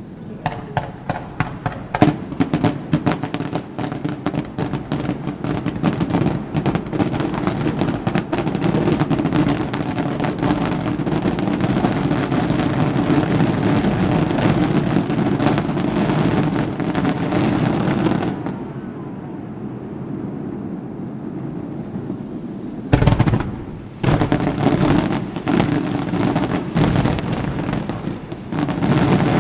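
Aerial fireworks: a rapid barrage of many shell bursts and crackling over a continuous rumble. It thins out about eighteen seconds in, followed by a heavy single boom and, near the end, another.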